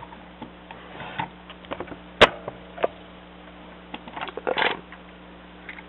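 Plastic LEGO bricks of a built Slave I model clicking and knocking as the model is handled and turned by hand. There is one sharp click about two seconds in and a few lighter clicks and rubbing sounds later on.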